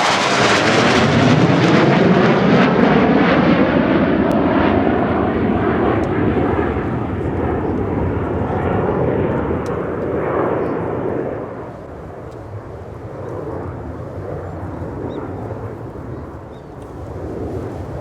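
F-15DJ Eagle's twin turbofan jet engines passing overhead in a display pass. The pitch falls as the jet goes by, then the sound fades to a distant rumble about two-thirds of the way through.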